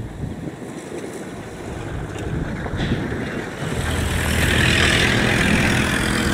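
Wind rumbling on the microphone, joined about halfway through by a low, steady engine hum, and the whole grows louder.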